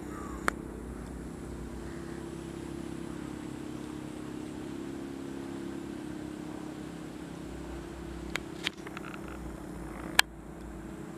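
A steady low engine drone, with four sharp clicks on top: one just after the start, two close together later on, and a louder one near the end.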